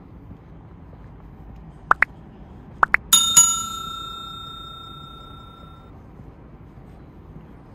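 A bicycle bell rung twice in quick succession, its metallic ring fading away over about three seconds. Just before it come four short rising chirps.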